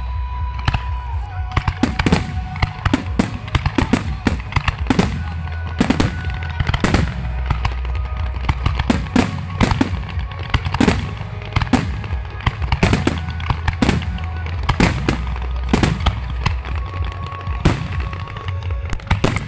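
Fireworks display: aerial shells bursting in a rapid, irregular run of bangs and crackles, several a second, over a steady low rumble.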